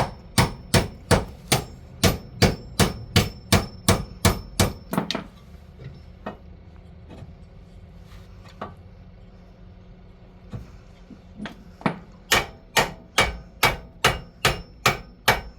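Hammer blows in a steady run of about three strikes a second with a slight ringing tone, like hammering on metal. After about five seconds the blows stop, and they start again near the end.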